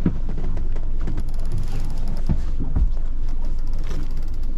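Steady low rumble of a boat's engine running, with water and hull noise and scattered clicks and knocks.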